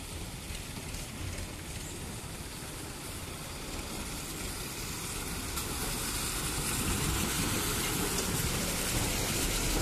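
BharatBenz tipper truck's diesel engine running as it drives up and passes close by, getting louder over the second half, with its tyres rolling through wet mud.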